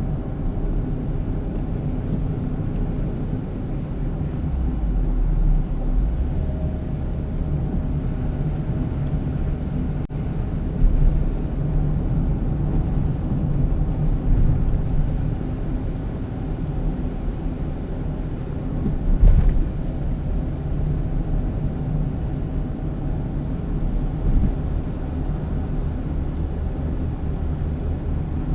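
A car driving, heard through the dashcam's built-in microphone inside the cabin: a steady low rumble of engine and road noise with faint steady tones, a sharp click about ten seconds in and a short bump a little past halfway.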